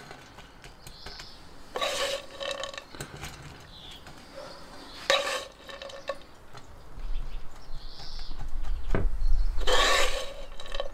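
A plastic spatula scraping browned minced meat out of a stone-coated frying pan and dropping it into a glass baking dish, with three louder scrapes and clatters about 2, 5 and 10 seconds in. A low rumble runs under the later part as the pan is handled.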